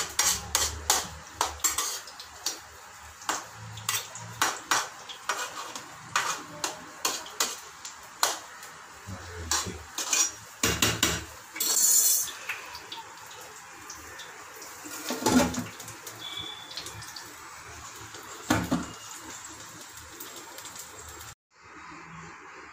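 Metal slotted ladle knocking and scraping against a large aluminium pot while mixing cooked biryani rice, quick clanks several a second. About halfway through comes a brief hiss, then the clanks give way to a few separate knocks.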